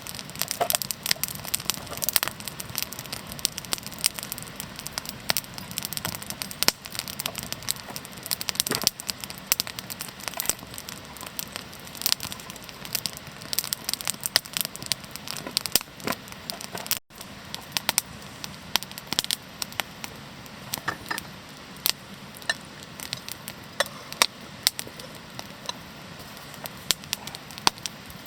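Wood campfire crackling, with frequent sharp pops scattered throughout.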